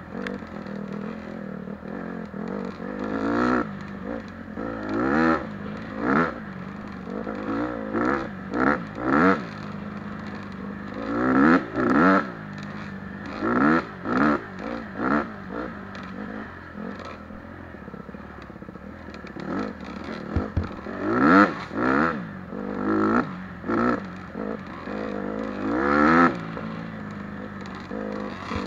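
Dirt bike engine heard close up from the riding bike, revving up and falling back again and again as the throttle is worked on a sandy trail, with a steadier stretch about midway.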